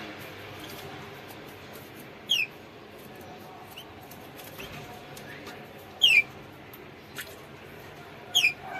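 Canary giving short, sharp chirps that drop in pitch: three loud ones, about two seconds in, about six seconds in and near the end, with a few fainter chirps between, over a low steady hiss.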